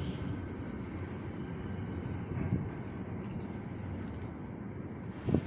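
Freight train of container flat wagons rolling past at close range: a steady low rumble and rattle of steel wheels on the rails, with one sharper, louder knock near the end.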